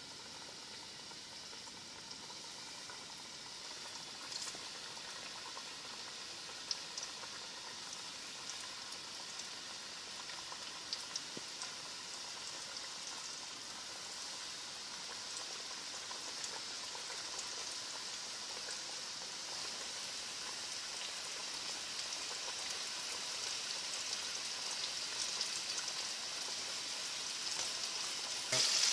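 Floured chicken pieces deep-frying in hot oil in a frying pan: a steady sizzle with a few small pops, growing gradually louder as more pieces go into the oil.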